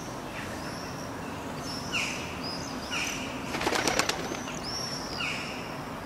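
Gulls calling: short calls that sweep down in pitch, with some higher arched calls, over a steady background noise. A quick series of clicks comes about three and a half seconds in.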